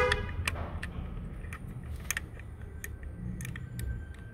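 Light metallic clicks and clinks from tools and parts being handled at an engine's timing-belt sprocket, scattered and irregular, with a brief ringing clink right at the start over a low steady rumble.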